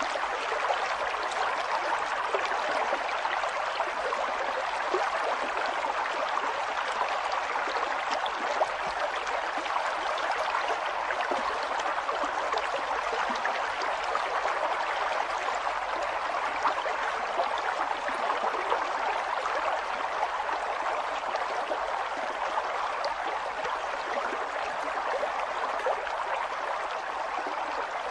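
River water flowing steadily over rocks, a constant rush with small splashes and gurgles scattered through it.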